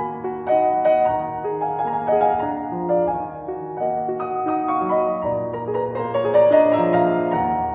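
Instrumental background music played on piano: a melody of single notes over held chords, moving note by note without pause.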